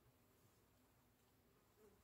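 Near silence: faint background hiss and low hum, with one brief faint note near the end.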